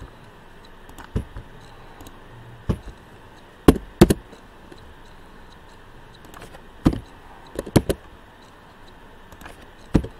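Scattered sharp clicks of a computer mouse and keyboard keys while text is edited, about nine in all at irregular intervals, the loudest two close together near the middle.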